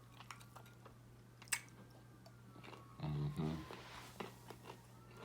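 Close-up chewing and biting of crispy fried tilapia, with small crackly clicks and one sharp crunch about a second and a half in. A low steady hum sits underneath.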